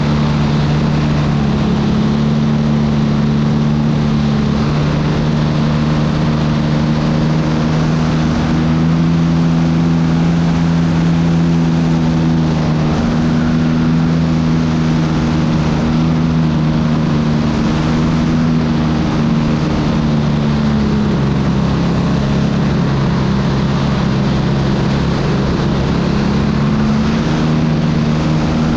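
RC airplane's motor and propeller running steadily in flight, heard close up from the plane itself over a rush of wind. Its pitch rises slightly about a third of the way through, drops back about two-thirds in, and rises again near the end as the throttle changes.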